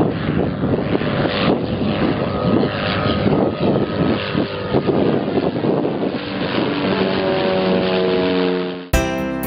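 A light single-engine propeller plane with a 180-horsepower engine running: a steady, loud, noisy drone. Music cuts in abruptly near the end.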